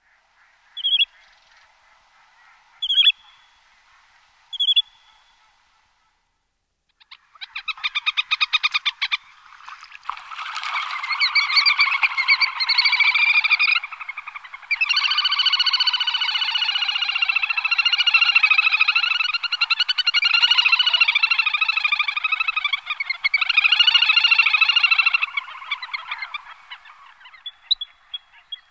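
Little grebe (dabchick) calling: three short single notes, then a long, rapid trill that goes on for many seconds with brief breaks before fading out near the end.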